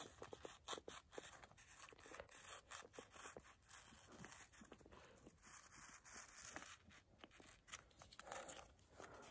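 Near silence, with faint scattered clicks and rustling.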